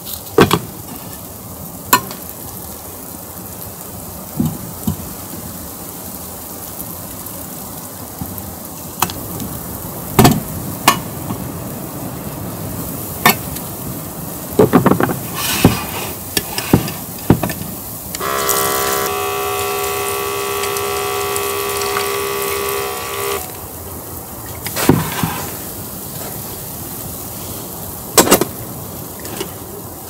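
A stainless steel mess tin and a folding knife handled on a wooden table: scattered clinks and knocks of metal on wood over a steady hiss. About eighteen seconds in, a steady ringing tone holds for about five seconds.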